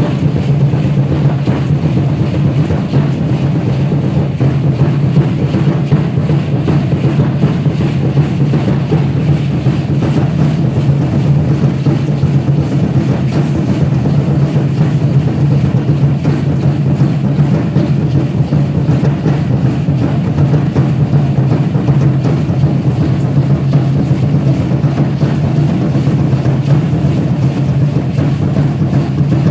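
Aztec dance drumming: a large huehuetl drum beaten in a fast, steady, unbroken rhythm, with the dancers' seed-pod ankle rattles shaking along with it.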